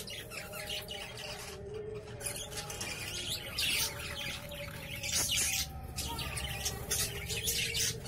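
Budgerigars chattering and squawking, with several loud, harsh bursts of squawks through the middle and near the end: the sound of budgies squabbling.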